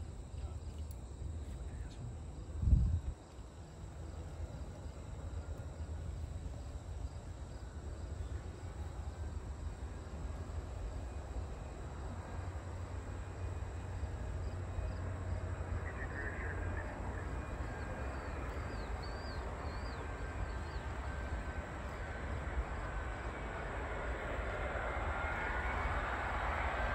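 A Boeing 777-200ER on final approach, growing in from about halfway as a faint steady jet-engine whine and rising rumble that gets louder toward the end. Under it a steady low rumble, with one sudden thump about three seconds in; faint insect chirps sound briefly in the middle.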